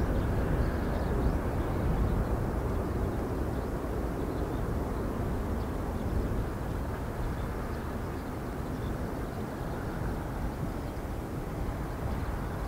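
Airbus A340-313's four CFM56-5C turbofans at takeoff-climb thrust: a steady, deep jet rumble that slowly fades as the airliner climbs away.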